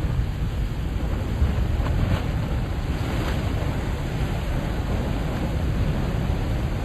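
Ocean surf at high tide: a steady low rush of waves, with two brief hissing washes of water about two and three seconds in.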